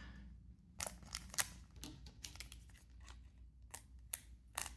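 Trading cards being handled: short irregular clicks and snaps as cards are flicked and slid against each other, about a dozen times.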